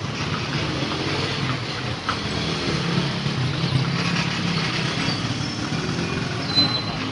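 Horse-drawn carriage rolling along a street: a steady rumble and rattle of its wheels and body. A brief high-pitched tone sounds about six and a half seconds in.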